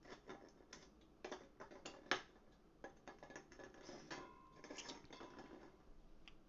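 Faint, irregular small clicks and light taps, one sharper click about two seconds in, with a brief steady high tone about four seconds in.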